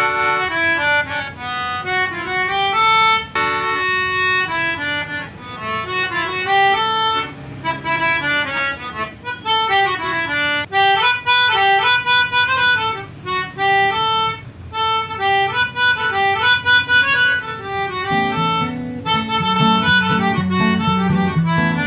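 Brothers 37-key melodica blown through its fixed mouthpiece, playing a melody of single held notes that step up and down. Near the end a lower repeating accompaniment joins in beneath the melody.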